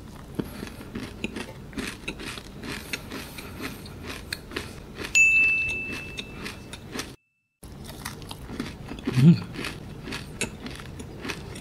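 Close-miked crunchy biting and chewing of a red berries cereal bar, a rapid run of small crisp crackles. About five seconds in, a steady high beep sounds for about two seconds, and the sound cuts out for a moment just after.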